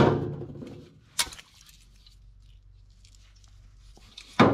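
Handling knocks on a workbench: a clunk as something is set down, a single sharp click a little after a second in, and another loud clatter near the end, with a faint low hum in between.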